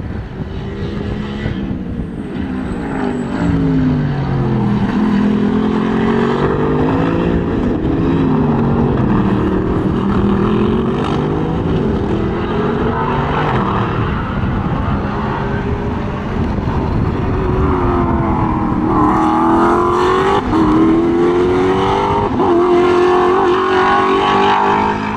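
GT race car engines at racing speed, their notes rising and falling in steps through several gear changes, with the pitch climbing through upshifts near the end. Wind buffets the microphone.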